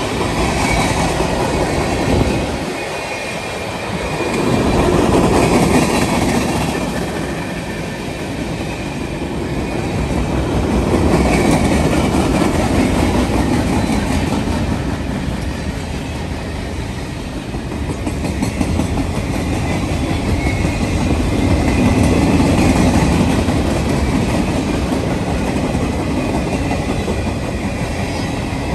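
A train rolling past at close range, its wheels clicking over the rail joints, the noise swelling and easing every several seconds as the cars go by.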